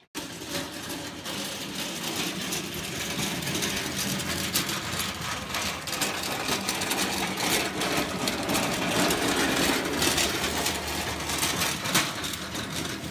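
A small metal wagon rolling along a concrete sidewalk, its wheels rumbling and rattling steadily with a constant patter of small clicks.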